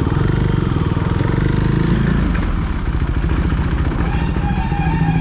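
Motorcycle engine running at a steady idle, an even, rapid low pulse.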